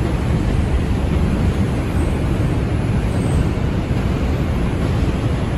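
Steady rumble of an R142 subway car running at speed on elevated track, heard from inside the car: wheels on rail and running gear, with no breaks or single knocks.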